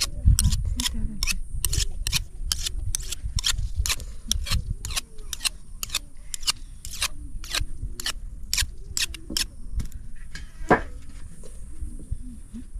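A kitchen knife being sharpened on a hand-held stone: the blade is stroked across the stone in quick, even scrapes, two to three a second, which stop about ten seconds in.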